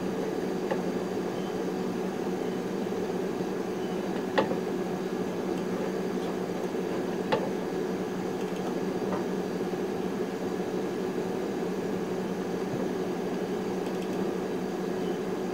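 Steady hum and whir of a running DEC AlphaServer 1000 and its cooling fans, with a few sharp mouse clicks, the clearest about four and seven seconds in.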